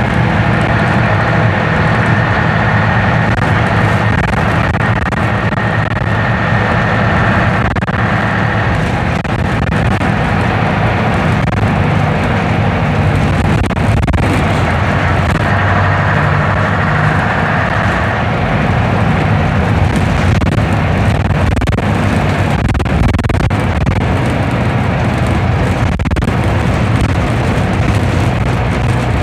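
Leyland double-decker bus's diesel engine running as the bus drives along, heard from inside the lower deck as a loud, steady drone. A higher whine sits over it for the first third, fades, and returns briefly a little past halfway.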